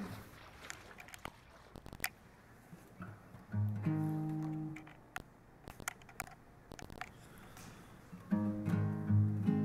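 Acoustic guitar strummed slowly. A chord about three and a half seconds in rings for over a second, then repeated chords follow from about eight and a half seconds on. Scattered sharp clicks fall in the quiet stretches between.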